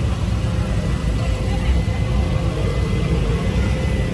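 Busy street ambience: a steady rumble of passing traffic with people talking in the background.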